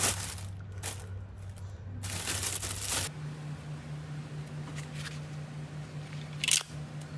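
Scratchy rustling and handling noises from phone repair work over a steady low hum. The hum shifts higher in pitch about three seconds in, and a short sharp scrape comes near the end.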